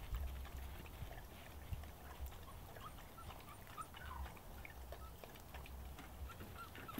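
West Siberian Laika puppies giving faint, short squeaks and whimpers while they play, a few in the middle and a couple more near the end, over a low rumble.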